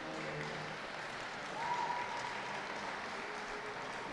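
Audience applauding in a show ring. A steady high tone sounds over the clapping about a second and a half in and lasts for a little over a second.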